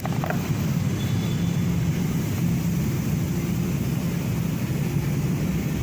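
Steady low mechanical hum of a running motor, even in level with a few constant low tones and no clear strokes or breaks.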